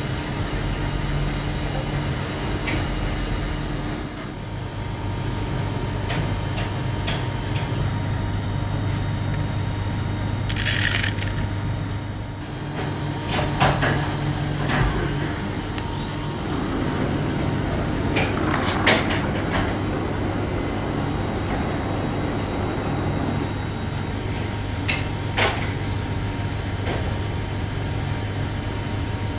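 Workshop machinery running with a steady low hum, overlaid by intermittent scrapes and clicks as shredded rubber and plastic shoe granules are scooped from a sack into a plastic tub.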